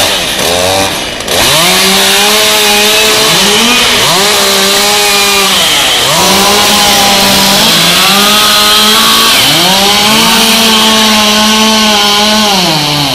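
Chainsaw engine throttled up and eased off again and again, each time climbing to a steady high pitch before dropping back, while cutting up a fallen pine.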